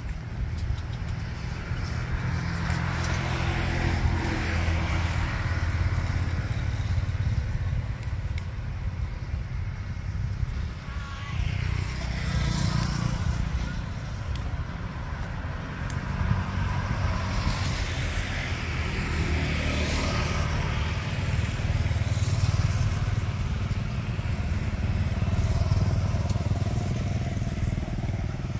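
Road traffic, mostly motorbikes, passing by in several swells that rise and fall over a constant low rumble.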